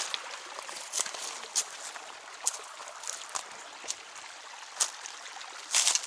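Irregular footsteps, each a short crunch, the loudest near the end, over the steady trickle of a shallow creek.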